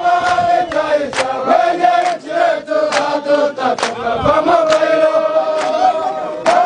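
A group of soldiers singing a chant together with held notes, clapping their hands in time about once a second.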